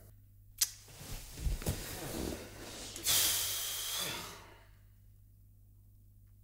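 A man shifting about in his office chair: a click, rustling of clothes and chair, then a hiss lasting about a second.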